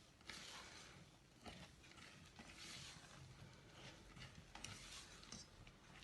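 Faint swishing and scraping of a spatula folding cake batter in a mixing bowl, drawing it up from the bottom to work in the flour.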